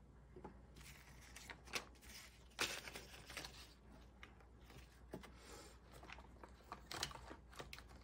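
Paper banknotes and a clear plastic cash envelope rustling and crinkling as they are handled, in short irregular bursts with a few louder crackles, the loudest about two and a half seconds in.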